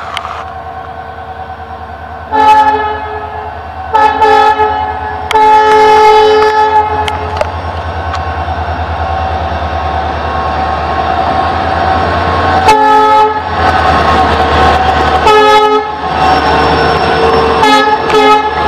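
Diesel locomotive sounding its multi-note horn in about six blasts, the longest about two seconds, over the steady low drone of its engine as it approaches and passes with its coaches.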